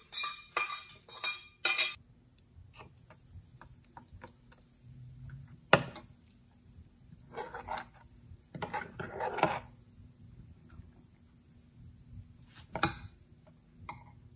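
Metal spoon scraping a stainless steel pan, about five quick strokes in the first two seconds, as the tadka is emptied into the chutney. Then a spoon stirring the coconut chutney in a bowl, scraping against it, with sharp clinks about 6 s and 13 s in.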